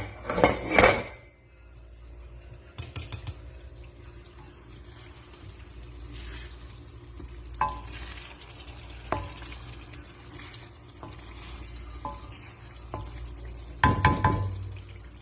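Metal utensils clattering and clinking against a cooking pot: a loud clatter at the start, single ringing clinks every second or two, and another clatter near the end, over a steady low sizzle from the pot.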